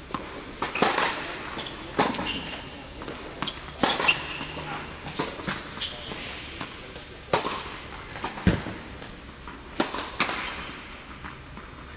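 Tennis balls struck by rackets and bouncing on an indoor hard court during a rally. The sharp pops come about every one to two seconds and echo in the hall, with a dull thud about eight and a half seconds in.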